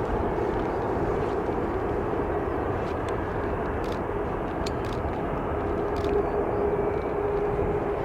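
Jet airliner engines running steadily: an even rumble with a steady hum.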